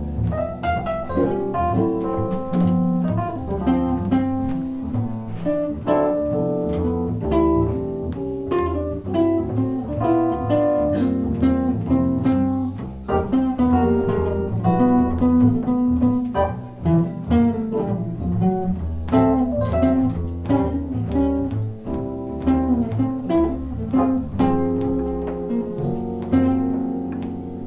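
Jazz trio playing: archtop electric guitar picking a melodic line over a plucked double bass and keyboard piano accompaniment.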